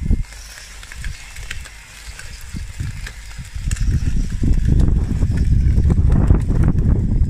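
Radio-controlled bulldozer model with 3D-printed plastic track links crawling over wet grass and dirt: irregular clicking and rustling over a low rumble that grows louder about four seconds in.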